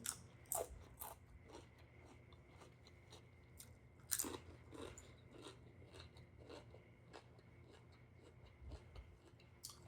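Faint chewing and crunching of crisp snack food, a scatter of short crunches with the loudest about four seconds in.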